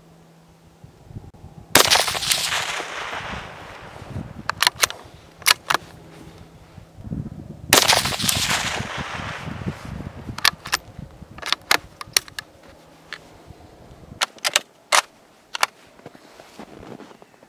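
Two loud rifle shots about six seconds apart, each followed by a long fading echo. Between and after them come a dozen or so sharp clicks, many in quick pairs.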